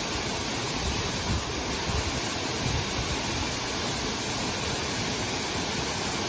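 Waterfall: a steady, unbroken rush of water pouring down a rock face.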